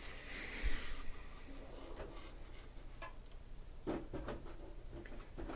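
Soft rustling for about a second, then a few scattered light clicks and taps: card boxes and packaging being handled on a tabletop.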